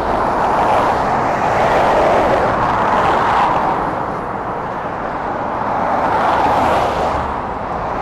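Road traffic passing close by on a dual carriageway bridge: a steady rush of tyre and engine noise that swells twice and eases in between.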